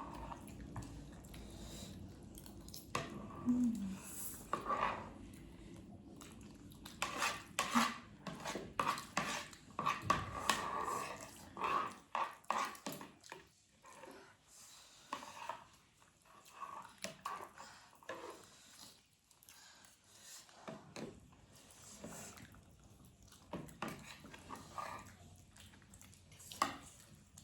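Eating from a bowl of noodles: cutlery tapping and scraping against the dish in scattered clicks.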